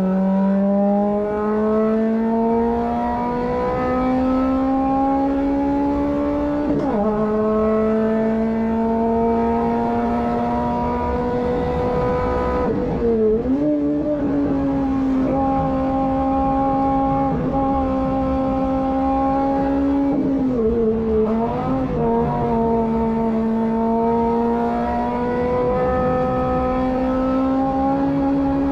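Renault Twingo 1.2 8v's four-cylinder engine, heard from inside the cabin, driven flat out with the revs climbing slowly. A gear change about seven seconds in drops the pitch sharply, and the revs dip briefly twice more, around halfway and about two-thirds through, before pulling up again.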